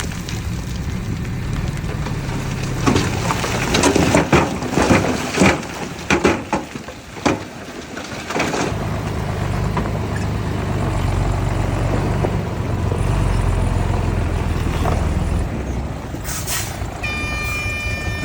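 Heavy diesel earthmoving machinery, a bulldozer and dump trucks, at work. For the first several seconds there is a run of sharp clanks and knocks, then a steady low engine rumble. Near the end a short hiss is followed by a high, steady multi-pitched tone.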